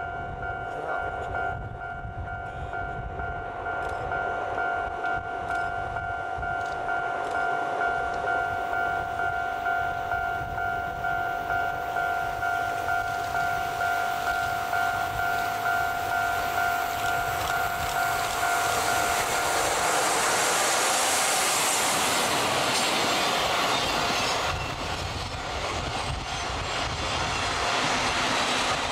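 EF66 electric locomotive hauling a train of blue sleeper coaches, approaching around a curve and passing close by, with wheels running over the rails. It is loudest about twenty seconds in as the coaches go by. A steady two-note tone sounds until about twenty seconds in and then stops.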